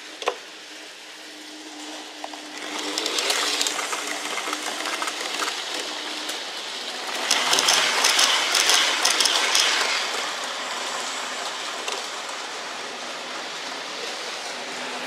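N-scale model trains running on the layout: small electric motors whirring and wheels rattling over the track, loudest from about seven to ten seconds in as a train passes close by. A sharp click sounds just after the start.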